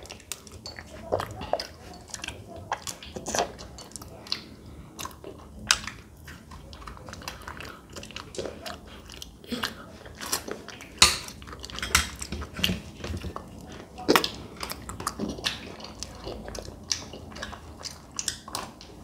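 Two children eating Magnum ice-cream bars close to the microphone: licking, biting and chewing make irregular wet smacks and clicks, with a few louder bites a little past the middle.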